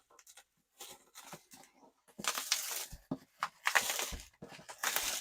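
Packaging being crinkled and torn as items are unwrapped, in several rustling bursts with a couple of short knocks in between.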